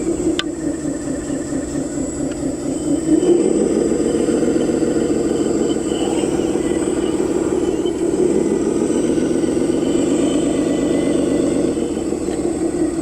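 Vehicle engine running steadily with a low, pulsing tone, as for a construction vehicle in an animation.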